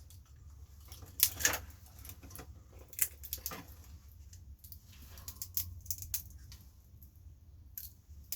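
Scattered clinks and clicks of a hand tool against small metal parts as an old cassette deck is taken apart, the sharpest a little over a second in and at about three seconds.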